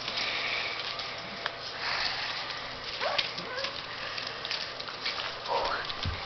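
Puppies give two short high cries, one rising about three seconds in and one falling a little before the end, over close rustling of a blanket and handling noise.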